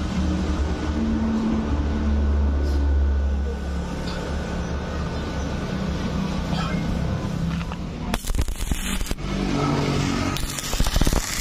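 A low steady hum, then, about eight seconds in, a stick-welding arc strikes on thin galvanized steel tube and crackles and sputters at about 70 amps. It breaks off briefly and restarts, loudest near the end.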